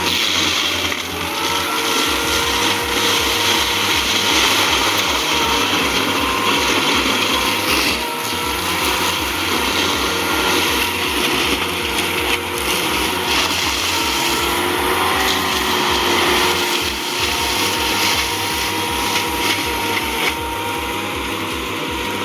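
Tracked forestry mulcher running, its engine and cutting head working loud and steady, with a low pulsing that sets in about two seconds in.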